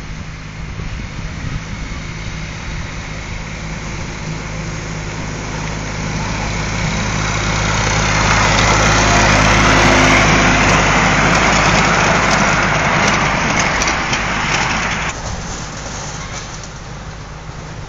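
Miniature railway train passing: the locomotive's engine hums steadily and the wheels run on the rails with some clicking. It grows louder to a peak about halfway through, then fades as the train goes away.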